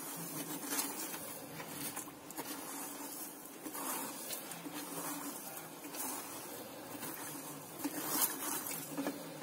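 Silicone spatula stirring sugar and water in a steel pot as the sugar dissolves for syrup. It makes soft swishing with a few light scrapes and taps against the pot, over a steady low hum.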